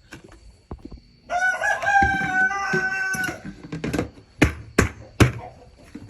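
A rooster crows once, a long call of about two seconds. It is followed a little later by three sharp knocks.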